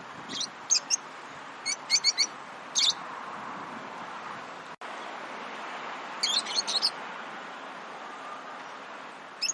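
Lovebirds chirping: short, sharp, high-pitched chirps come in quick bunches, several in the first three seconds and another flurry about six seconds in, over a steady background hiss.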